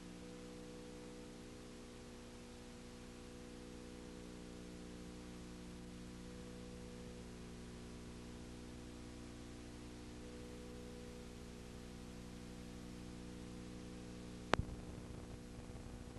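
Steady electrical hum with hiss from the recording, and one sharp click near the end.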